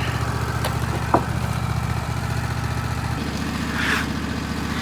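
Wood-Mizer LT15 Wide sawmill's engine running steadily at idle, its note shifting about three seconds in, with a single short click just after a second in.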